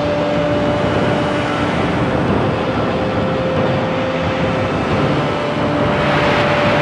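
Industrial soundscape made with a sampler library: a dense, steady wash of machine-like noise with a couple of faint held tones under it, and a hiss swelling near the end.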